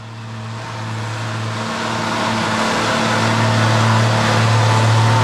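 Oliver tractor's engine running steadily under load as it pulls a weight-transfer sled, growing louder over the first couple of seconds.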